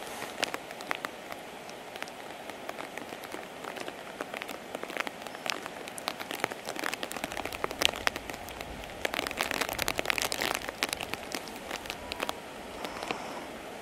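Rain falling steadily, with many individual drops ticking sharply close by; the rain gets heavier for a couple of seconds past the middle.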